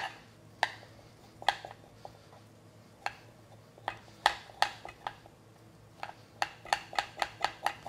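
Metal spoon scraping the skin off a ginger root, clicking against a plastic cutting board: a few scattered strokes, then a quick run of them near the end.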